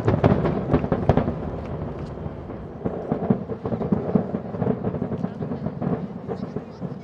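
Barrage of aerial firework shells bursting in rapid succession, booms overlapping into a continuous rumble. The loudest bangs come in the first second or so, and the barrage thins near the end.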